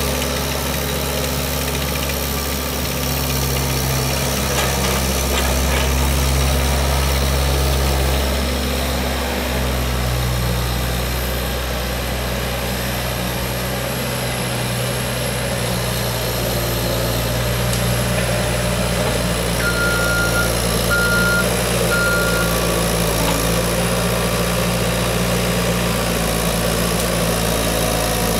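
Caterpillar 257B compact track loader's diesel engine running steadily, its pitch shifting a few times as the machine works. About twenty seconds in, three short beeps of its backup alarm.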